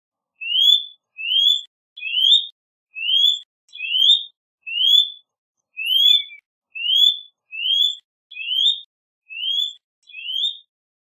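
Eurasian nutcracker calling: a series of twelve short whistled notes, each sliding upward in pitch, repeated evenly a little under once a second.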